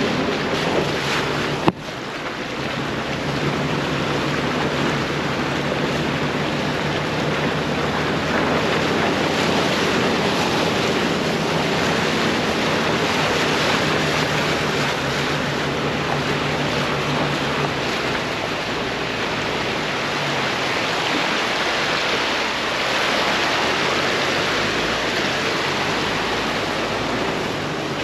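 Jeep Wrangler TJ driving on a dirt mountain trail: a low engine hum under a steady rushing noise, with a sharp click about two seconds in. The engine hum drops away around eighteen seconds in while the rushing goes on.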